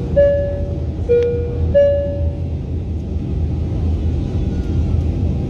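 Jet airliner engines rumbling as the plane climbs away just after takeoff. Over it, about two seconds of a pitched two-note tone alternating low and high, then only the rumble.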